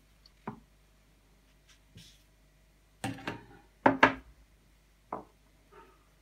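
Handling knocks and clunks as a tin of oil, a knife and tools are picked up and set down on a wooden workbench. There are a few scattered knocks, and the loudest two come close together about four seconds in.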